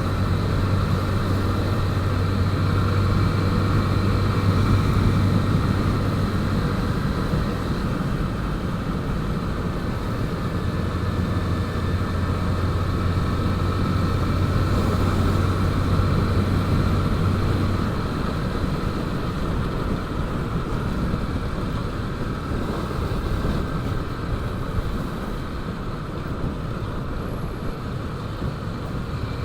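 Small motorcycle engine running steadily while riding, with road and wind noise; its low engine hum weakens about two thirds of the way in.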